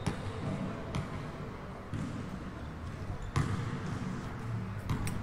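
A few scattered sharp thuds of a basketball bouncing on an indoor court floor, echoing in a large sports hall.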